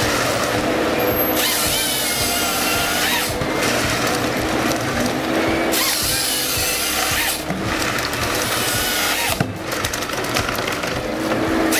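Forestry machinery running with a power-tool-like mechanical noise, changing abruptly several times as if between different machines.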